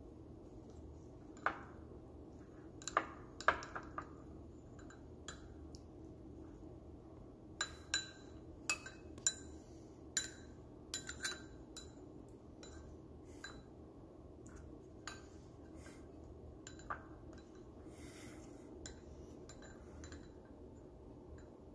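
A fork clinking and tapping against a ceramic bowl as cooked salmon is flaked apart: irregular sharp clinks, bunched around three seconds in and again from about eight to eleven seconds, then sparser.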